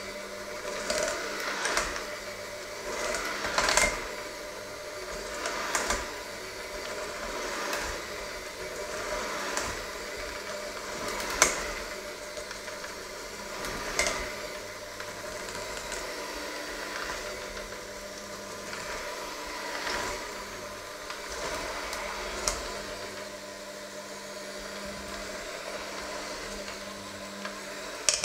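Electric hand mixer running steadily, its beaters churning a thick creamy mixture in a stainless steel bowl. Irregular sharp clicks every few seconds as the beaters strike the steel bowl, with a cluster of clicks near the end.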